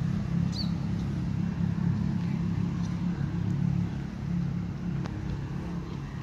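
A motor vehicle engine running with a steady low hum, easing off a little after about four seconds.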